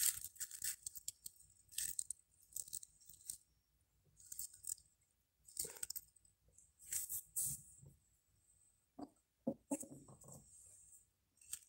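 Small resin figurines handled and set down on artificial grass turf: faint, scattered rustles and light clicks and knocks, with a few duller knocks about nine to ten seconds in.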